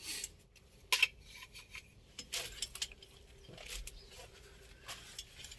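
A handful of scattered sharp clicks and light clinks of safety gear and tools being handled: harness hardware, goggles and items in a toolbox.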